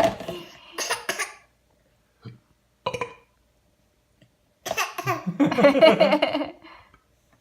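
Playful fake coughs traded between a man and a baby in an imitation game: a few short coughs over the first three seconds, then laughter from about five seconds in.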